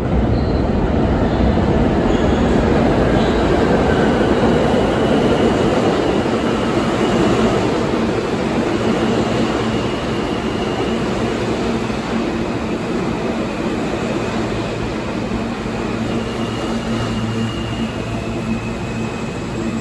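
Five-car R160 subway train pulling into an underground station and slowing to a stop. The wheels rumble on the rails, loudest in the first half as the cars pass close by. A high, steady squeal sets in about halfway through as the train brakes.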